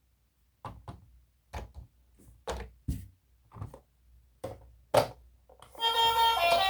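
A series of short, light knocks, about ten of them, several coming in close pairs, with silence between; music starts near the end.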